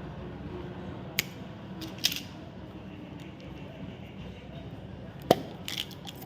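Chocolate packaging being handled: a few sharp clicks and crinkles, the loudest about five seconds in, over a steady low hum.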